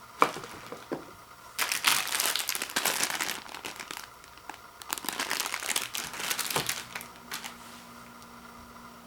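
Plastic wrappers of instant ramen noodle packets crinkling as they are handled: a sharp click about a quarter second in, then two spells of crinkling a couple of seconds each, stopping about seven and a half seconds in.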